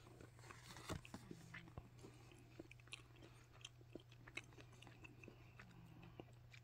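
Faint chewing of a Ferrero Dark Opera chocolate, a dark chocolate cup topped with cocoa shavings: scattered small crunches and mouth clicks over a steady low hum.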